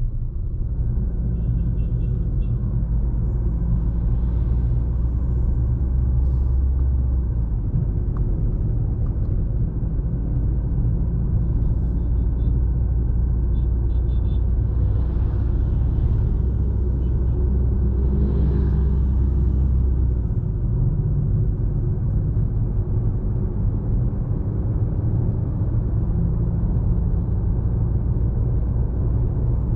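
Fiat Toro's 2.0-litre diesel engine running under way, a steady low rumble mixed with road noise. The engine note drops and changes about a third of the way in and again about two-thirds of the way in.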